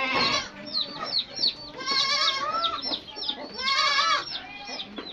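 Goats bleating with a wavering, quavering voice, three calls about two seconds apart, over a steady run of short high chirps from small birds.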